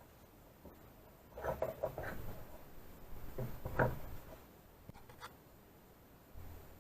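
A few seconds of scraping and rubbing with a few light knocks, then two faint clicks near the end.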